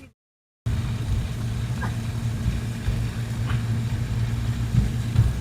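Car engine and road noise heard from inside the moving car, a steady low rumble that starts after a brief half-second gap.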